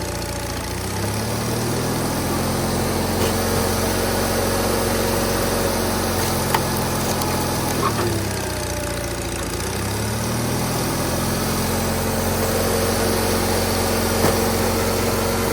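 Engine running steadily, its pitch sagging twice under load and then picking back up.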